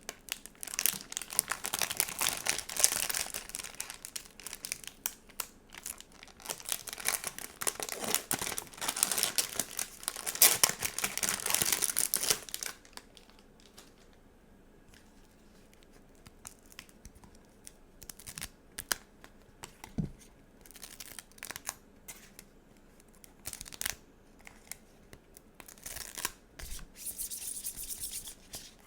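Stickers and their plastic packaging being handled: continuous crinkling and tearing for about the first twelve seconds, then scattered light taps and rustles, with a brief crinkle again near the end.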